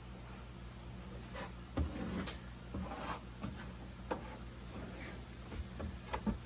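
Scattered rubbing and short light knocks as carpet and floor panels are worked into place in a boat, over a steady low hum.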